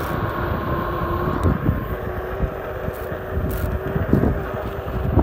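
Wind buffeting the microphone and a tyre rumbling over asphalt as a Onewheel single-wheel electric board rides along, with a faint steady whine from its hub motor underneath.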